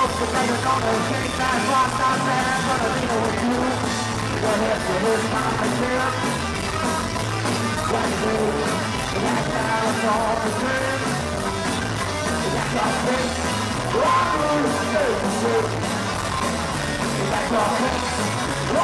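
A live rock and roll band plays, heard from the audience in the club: electric guitars, electric bass and a drum kit with a steady beat.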